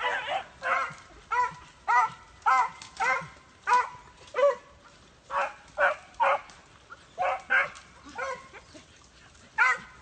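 Beagles giving voice on a rabbit's scent: about fifteen short, pitched barks, roughly one or two a second with uneven gaps, as the hounds run a swamp rabbit.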